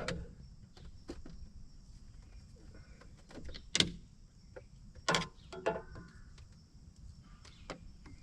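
Scattered clicks and knocks of gear being handled, with the sharpest knock about four seconds in and another just after five, over a low background.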